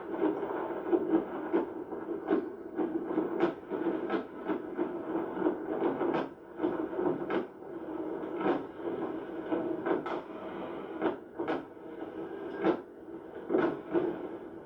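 Steady car-cabin noise while driving through a storm, with many irregular sharp taps of rain striking the car.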